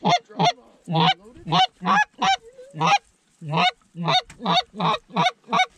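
Hand-blown goose call sounding a fast series of short honks and clucks, about two to three a second, with a brief break about three seconds in.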